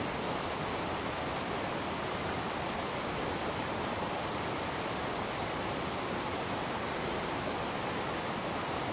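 Shallow rocky river flowing, a steady rushing of water that does not change.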